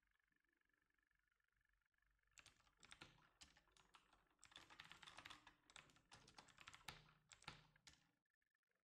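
Computer keyboard typing: a quick run of key clicks starting about two seconds in and stopping shortly before the end, as terminal commands are entered.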